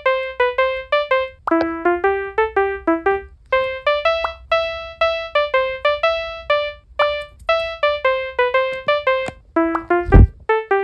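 Background music: a simple, bouncy keyboard melody of short, quickly fading single notes. A low thump comes near the end.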